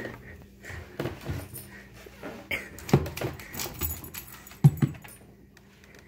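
Dogs sniffing and shifting about at a glass aquarium, collar tags jingling, with two short loud thumps about three seconds in and just before five seconds.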